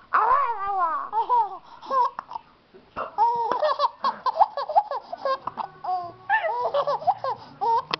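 A baby girl laughing: high-pitched laughter in short bursts that come in quick runs, with a sliding, squealing voice near the start.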